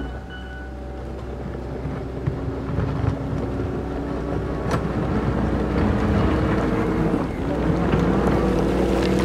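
Case Minotaur DL550 compact track loader working under load while ripping fractured rock with its rear ripper. The engine note climbs, sags about seven seconds in, then picks back up, with a couple of sharp knocks.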